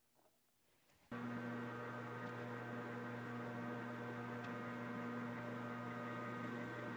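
Metal lathe running steadily, its motor giving a constant hum, while single-point threading the inside of an aluminum cap. The sound starts abruptly about a second in, after near silence.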